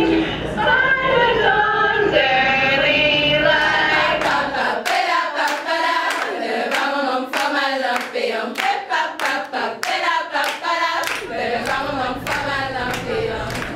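A group of girls singing together, joined from about five seconds in by steady rhythmic hand clapping.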